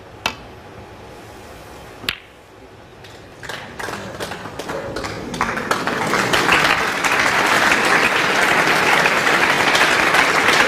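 Two sharp clicks of snooker balls about two seconds apart, the first as the cue strikes the cue ball. Then audience applause builds from about three and a half seconds in and carries on loudly.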